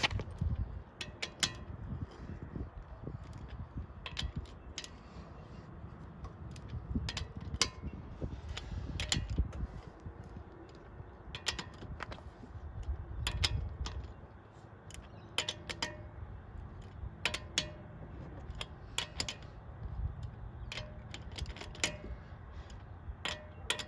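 Wheel nuts being given a final tighten by hand with a wrench: sharp metallic clicks and clanks that come in irregular clusters every second or two.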